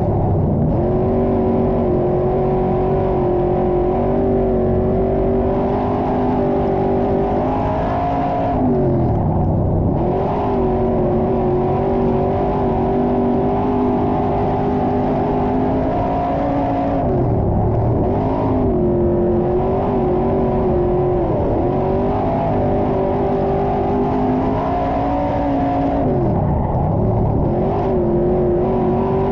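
IMCA stock car's V8 engine heard from inside the car under racing load. It runs hard and steady down the straights, and its pitch drops and climbs back about five times as the driver lifts off and gets back on the throttle through the turns.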